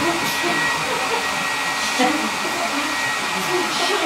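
Snare drum roll: a steady, unbroken rattle that holds at an even level throughout, the suspense roll for the flea's high dive.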